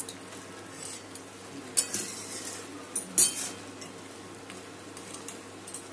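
A spatula stirring bottle gourd and shrimp in a metal kadai, scraping and knocking against the pan a few times, loudest about three seconds in, over a low steady sizzle of the wet vegetables cooking down.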